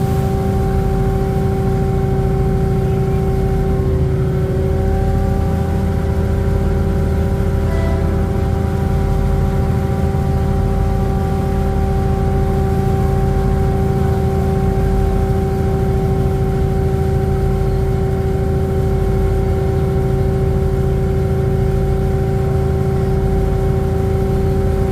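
Engine and hydraulic transmission of a diesel-hydraulic railcar (KRD) running under power: a loud, steady diesel drone with several whining tones that hold the same pitch.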